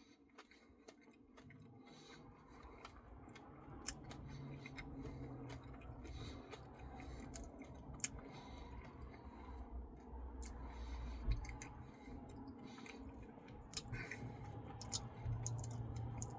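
Faint chewing and mouth sounds of someone eating soft-serve ice cream with cookie dough, with scattered small clicks. It begins about two seconds in.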